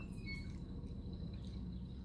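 A few short bird chirps near the start, over a steady low hum.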